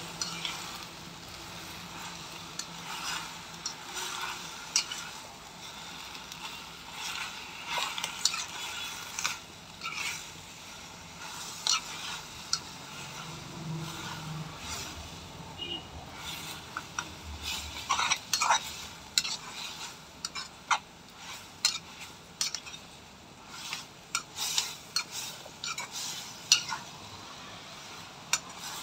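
Steel spoon stirring gongura (sorrel) leaves frying in oil in a kadai, with repeated scrapes and clinks of the spoon against the pan over a low sizzle. The clinks come faster and louder in the second half.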